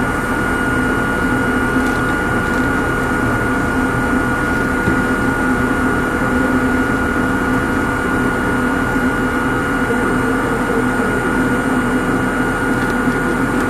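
Steady mechanical hum of a Hakone Tozan Railway Moha 1 electric railcar, heard from inside the car. Several constant tones sit over an even noise, with no rise or fall in pitch.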